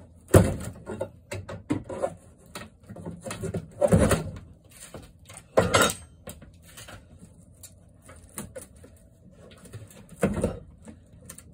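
A wooden cabinet being worked loose by hand: irregular knocks, bangs and scrapes of wood on wood, the loudest about half a second in, around four seconds, just before six seconds and about ten seconds in.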